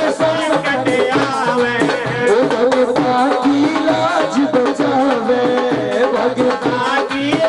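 Hindi devotional bhajan music, an instrumental passage with a steady drum beat under a wavering melody line.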